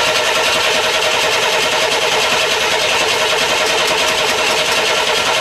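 Freshly rebuilt Corvair air-cooled flat-six engine running steadily and loudly on its initial break-in, with its cooling fan spinning.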